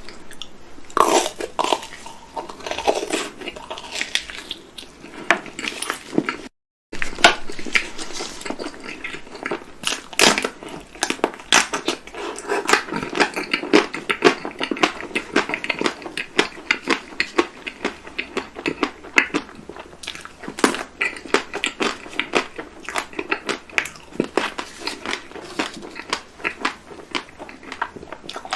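Close-miked biting and chewing of chocolate-coated sweets: an irregular, continuous run of crisp crackles and clicks. The sound drops out briefly about seven seconds in.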